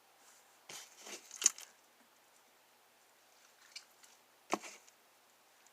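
Homemade slime being squished and worked in the hands, giving short wet crackling squelches: a cluster about a second in and two more shortly past the middle.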